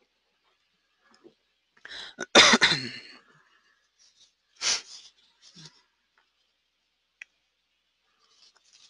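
A man coughs once, loudly, about two and a half seconds in, followed a couple of seconds later by a short breath; a small click comes later, with near silence between.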